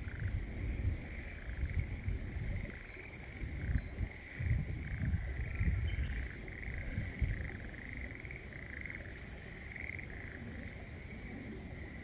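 Mountain stream running out of sight under a steady, high-pitched trilling chorus that pulses without a break. Irregular low gusts of wind buffet the microphone, heaviest in the first half.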